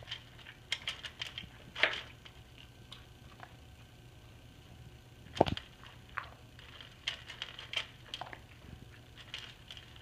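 Plastic dog treat-puzzle toy clicking and knocking as a puppy noses its compartments and lids and eats kibble out of them. Scattered small clicks, with a louder knock about two seconds in and another about five and a half seconds in.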